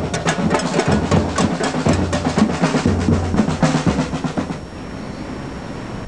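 Fast drumming on several drums, a dense run of strikes with deep booming beats, fading out about four and a half seconds in and leaving a steady background noise.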